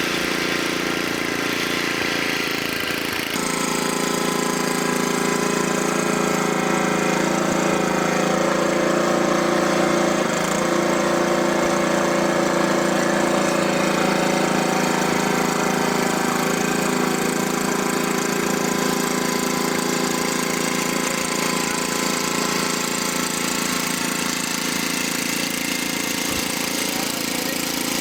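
A small engine running steadily, its note shifting about three seconds in and then holding.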